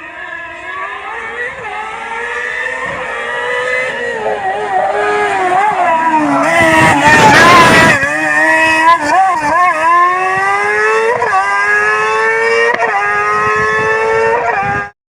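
Race car engine running hard on a slalom course, its pitch climbing under throttle, with short dips and wobbles as the driver lifts and blips through chicanes. A burst of loud rushing noise comes in about six and a half seconds in and lasts just over a second, then the engine pulls up through the revs again until the sound cuts off abruptly.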